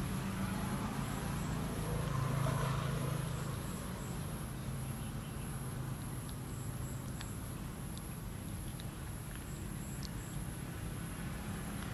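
A steady low engine hum, a little louder for a second or so about two seconds in, with faint insect chirps above it and a few soft clicks as a baby macaque chews peeled grapes.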